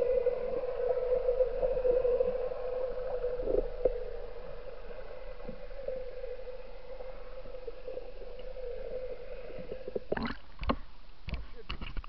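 Muffled underwater sound: a steady mid-pitched hum with scattered soft knocks. About ten seconds in, water splashes and sloshes loudly as the camera is lifted out through the surface.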